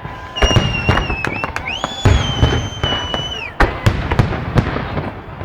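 Festive fireworks salute going off: a rapid run of sharp bangs and crackles, with two long, steady, high-pitched whistles over them, the second starting about two seconds in.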